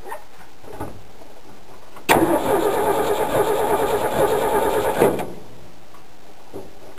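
Starter motor cranking the engine of a 1969 Ford F100 Ranger pickup for about three seconds with an even, pulsing rhythm; the engine turns over but doesn't fire, since no fuel is supplied with the gas tank not hooked up. It starts suddenly about two seconds in and stops abruptly.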